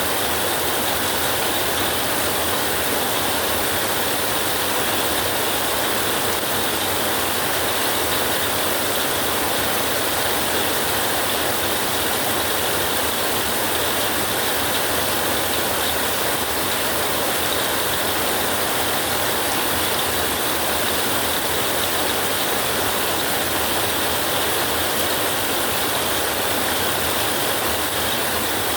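Steady, dense rain hiss with no break and no thunder.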